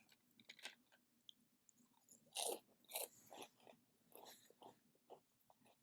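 Close-up chewing and crunching of food in the mouth, soft and irregular, with two louder crunches about two and a half and three seconds in.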